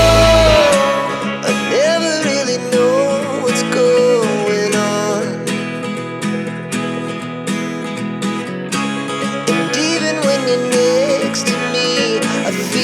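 Music: a song with a wavering sung melody over guitar; the deep bass drops out about half a second in.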